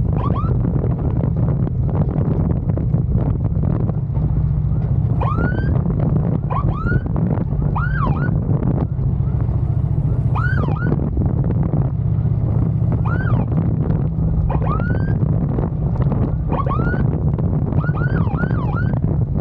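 Emergency siren giving short rising-and-falling whoops, singly and in quick runs of two or three every couple of seconds, used to clear traffic. Under it runs the steady drone of the motorcycle's engine and wind noise.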